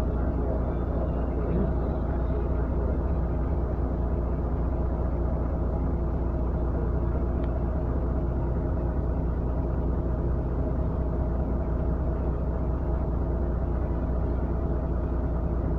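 A motor running steadily with a low rumble and an even hum.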